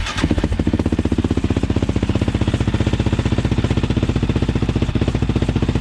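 Yamaha Raptor 700 ATV's single-cylinder four-stroke engine idling steadily with an even, loud pulsing beat, freshly started after a clutch replacement and oil change.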